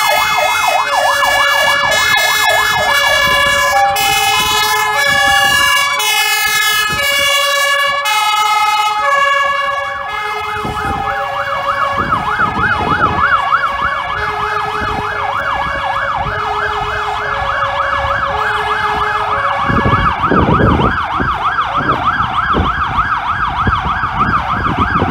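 Fire engine sirens sounding together: a fast electronic yelp warbles throughout, with a two-tone horn's alternating notes over it. The two-tone notes drop out about ten seconds in while the yelp carries on.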